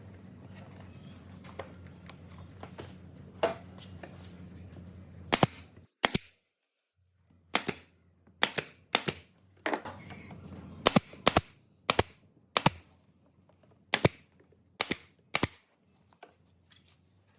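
A low steady hum with a few faint clicks, cutting out about six seconds in. It is followed by a series of sharp knocks at irregular intervals, roughly one a second, each dying away quickly.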